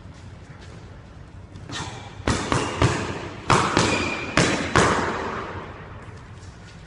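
Boxing gloves smacking into focus mitts in a quick run of about seven sharp hits, each with an echo off the squash court walls. Quieter foot shuffling comes before and after.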